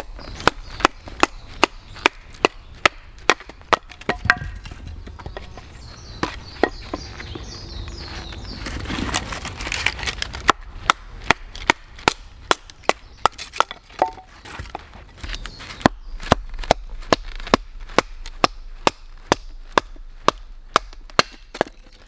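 A full-tang knife being batoned through a stick of firewood: a wooden baton strikes the knife's spine in sharp wooden knocks, about two a second, as the blade is driven down to split the wood. The knocking breaks off for several seconds of rustling a little after the start, then resumes at the same pace.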